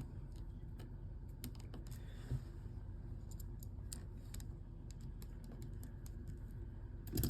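Faint, scattered light clicks and ticks of a small screwdriver and tiny phone parts being handled while a screw is worked into a smartphone frame, with one slightly louder knock about two seconds in.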